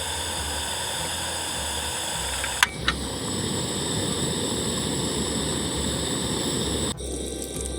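Steady hiss of camp cooking on a stove, with two brief clicks about a third of the way in, cut off abruptly near the end. Soft background music runs beneath.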